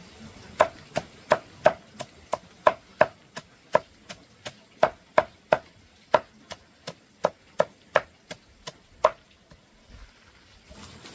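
Knife chopping on a cutting board: a steady run of about 25 sharp chops, roughly three a second, that stops about nine seconds in.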